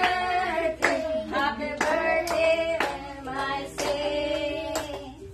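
A group of people singing a birthday song together in long held notes, clapping along to the beat about twice a second.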